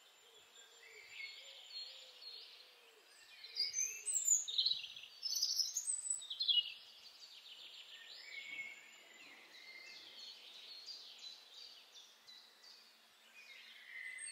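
Small birds chirping and singing, busiest and loudest between about four and seven seconds in, with scattered quieter chirps later and a faint steady high insect trill behind.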